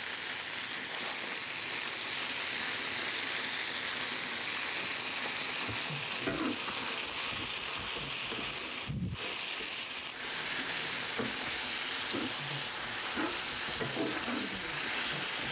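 Dakgalbi sizzling in a hot pan, a steady hiss that breaks off for a moment about nine seconds in, with close-up eating and chewing sounds into the microphone.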